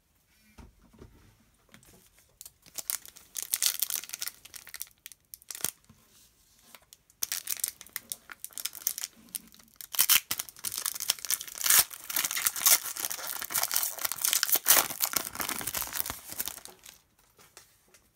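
Foil wrapper of a basketball trading-card pack being torn open and crinkled by hand, in two stretches of crackling, the second much longer.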